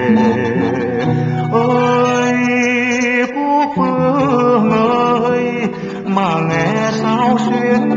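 Background music: a Vietnamese song sung by a man, his held notes wavering in pitch, over guitar accompaniment.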